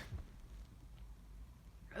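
The last of a sneeze from a person with a cold dies away in the first instant, then there is only faint room tone with a few soft small sounds.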